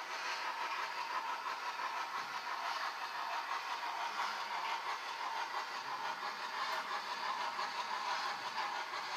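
Hornby Duchess of Montrose OO-gauge model steam locomotive with a digital sound decoder running on the layout. Its on-board sound mixes with the steady running noise of the model's motor and wheels on the track.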